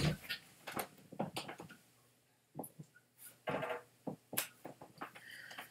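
Scattered light knocks and clicks of a person moving about a small room and handling objects, with a quiet lull about two seconds in.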